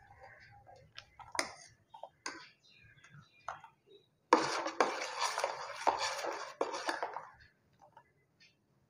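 Metal spoon stirring milk in a stainless steel saucepan, clinking and scraping against the pan, as vinegar water is stirred in to curdle the milk. A few light clinks at first, then about three seconds of steady scraping and clattering from about four seconds in.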